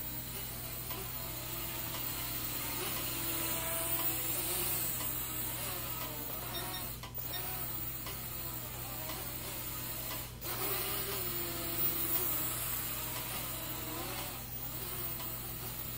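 Syma X11 mini quadcopter's small motors and geared propellers whining in flight, the pitch wavering up and down as the throttle changes, with two brief drops in level about seven and ten seconds in.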